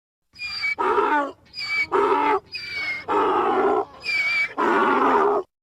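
Donkey braying: four hee-haw cycles, each a thin, high wheezing intake followed by a louder, lower honk. It starts about a third of a second in and stops sharply just before the end.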